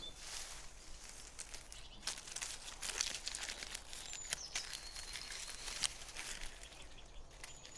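Dry palm fronds rustling and crackling as they are handled and laid onto a stick platform, with many scattered sharp crackles and snaps.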